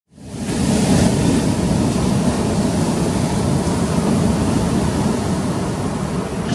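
Ocean surf breaking in typhoon swell, a steady rush with wind rumbling on the microphone, fading in from silence at the start.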